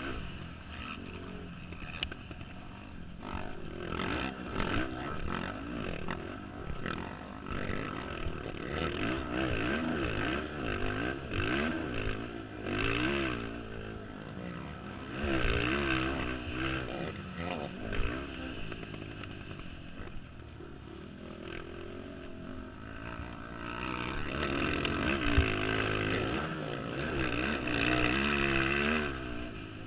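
Several racing ATV engines revving up and down as the quads pass, rising and falling in pitch with throttle and gear changes. The sound swells louder about halfway through and again near the end as machines come close, then fades.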